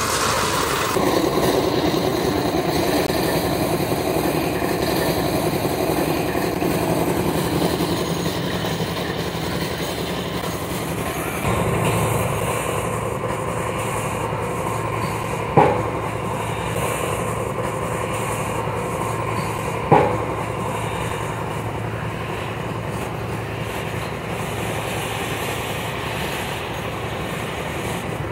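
Mahindra Loadking Optimo tipper truck's diesel engine running while the hydraulic hoist raises the dump bed and a load of M sand slides out. A steady low hum joins about a third of the way in, and two sharp knocks come about four seconds apart past the halfway mark.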